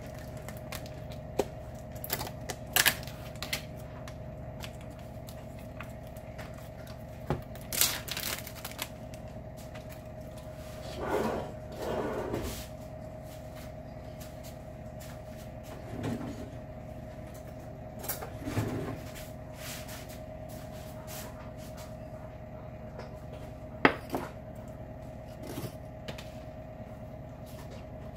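Scattered clicks, knocks and clatter of kitchen food prep: containers, lids and utensils handled on a counter, with a few brief scuffling bursts. A steady hum runs underneath.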